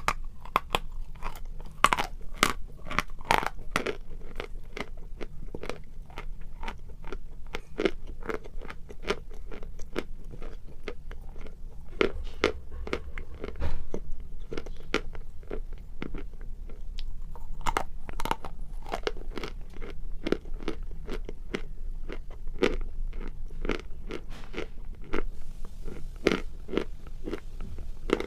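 Sawn chalk being bitten and chewed: a dense, uneven run of dry crunches and snaps, with the loudest bite about fourteen seconds in.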